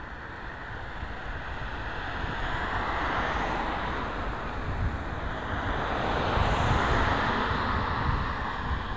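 Wind rushing over a bicycle-mounted camera's microphone while a sedan overtakes, its tyre noise growing louder and loudest about six to seven seconds in.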